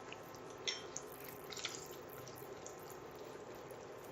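Cumin seeds and whole spices sizzling in hot oil and butter in a kadhai, a steady quiet sizzle with a few small crackling pops in the first second and a half.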